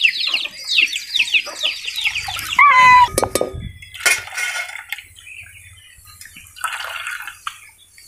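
Chicks peeping in rapid, falling chirps for the first two seconds or so, then a short, loud pitched call about three seconds in. After that come a few brief splashing and handling noises.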